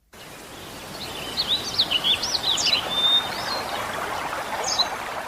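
Birds calling outdoors: quick chirps that sweep up and down, busiest about one to three seconds in, with a brief steady whistle and a few more calls near the end, over a steady outdoor hiss.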